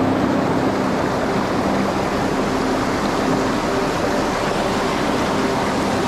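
Steady rush of a rocky mountain stream, white water spilling over boulders in small rapids.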